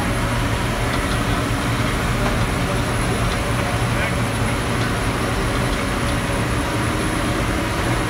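Squash harvester running steadily in the field, heard from inside its cab: a constant low engine drone with the noise of the pickup conveyors, and a faint high whine over it.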